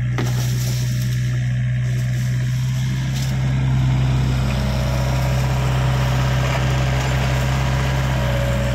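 Doosan mini excavator's diesel engine running steadily with a deep even hum, getting a little louder about four seconds in as the machine works, with a faint whine coming and going.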